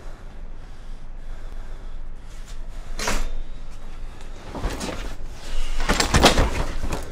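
Knocks and rustling of a scuffle between two people: a burst about three seconds in, another a couple of seconds later, and the loudest cluster near the end.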